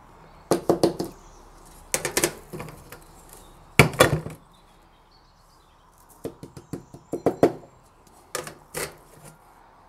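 Round metal test sieves knocked and tapped while sand is emptied out of them and they are handled and lifted off a stack: several short bursts of three to five quick sharp taps.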